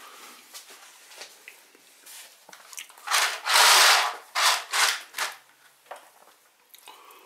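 Sheer curtain fabric swishing and rubbing as it is pushed aside, heard as a run of noisy strokes from about three to five seconds in, the longest lasting about half a second.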